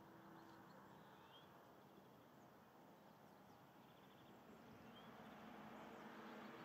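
Near silence: faint outdoor ambience with two brief, faint rising bird chirps, one about a second in and one about five seconds in.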